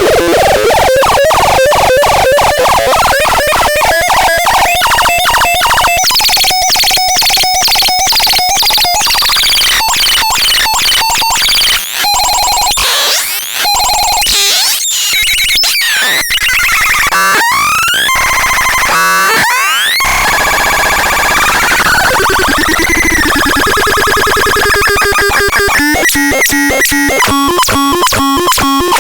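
Electronic synthesizer making harsh, loud noise: rapid pulsing clicks under pitched tones that jump and slide up and down, changing character every few seconds, with a fast regular stuttering pattern near the end.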